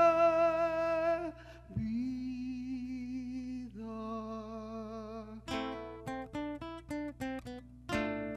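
A man singing three long held notes with vibrato over quiet classical guitar, then fingerpicked classical guitar notes in a quick run from about five and a half seconds in.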